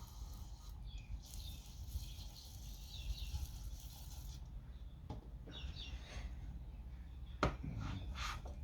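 Faint scraping and rubbing on engine parts, with two sharp knocks about five and seven and a half seconds in.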